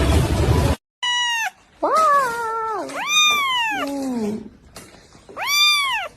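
A loud rushing noise that cuts off abruptly just under a second in, then a tiny kitten meowing four times: high-pitched meows that rise and fall in pitch.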